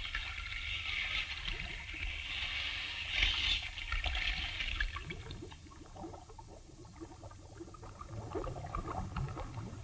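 Water sound effect of waves surging and washing, swelling a few times and then dying away about halfway through. Under it runs the steady low hum and faint crackle of an old film soundtrack.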